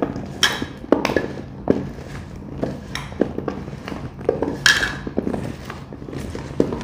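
Small tender mangoes (mavadu), slick with castor oil and turmeric, being tossed by hand in a stainless steel bowl: irregular knocks and clacks of the fruit against one another and the bowl, the steel ringing briefly now and then.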